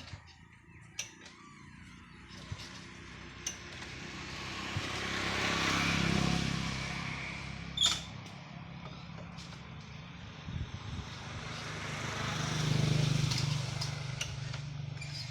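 Motor vehicle engine noise swelling up and fading away twice, with a sharp click about eight seconds in.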